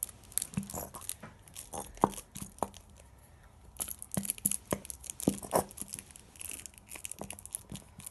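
Irregular crackling and clicking from a plastic bottle of clear glue held upside down and handled as the glue pours into a plastic tub, quieter for about a second near the middle.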